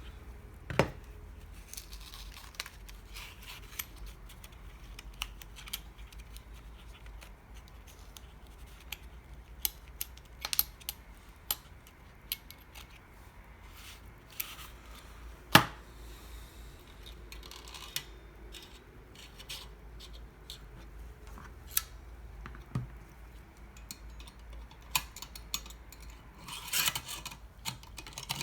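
Heavy-duty stapler being handled: scattered light metal clicks and rubbing, with a few sharper snaps, the loudest a little past halfway.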